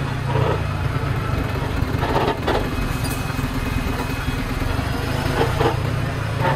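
Sinotruk concrete mixer truck's diesel engine running steadily, a constant low hum heard close up, with a few short scuffing noises over it.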